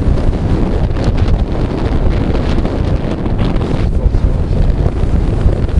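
Strong wind buffeting the microphone: a loud, steady rumble.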